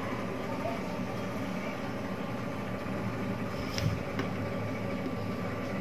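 Steady background hum and hiss, with two light clicks about four seconds in as a cable plug and knobs on the back of the equalizer are handled.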